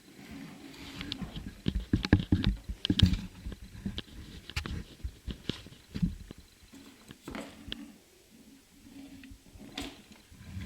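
Close handling noise: irregular clicks, taps and light rustles of plastic parts and packaging being handled, busiest about two to three seconds in.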